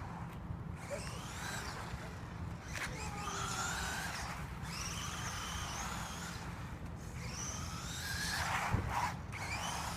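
Remote-control car's motor whining, rising in pitch in repeated short runs as it speeds up and eases off, with a single knock about nine seconds in.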